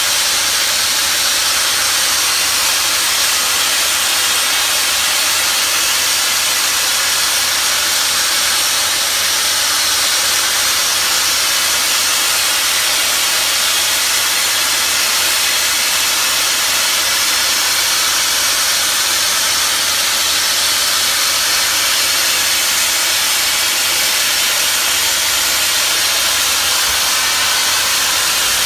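Wet abrasive blasting nozzle spraying a high-pressure jet of water and grit against a riveted steel caboose side, stripping the paint: a loud, steady hiss.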